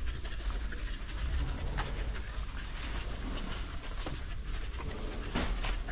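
A dog panting, over a steady low rumble from the camera being carried along.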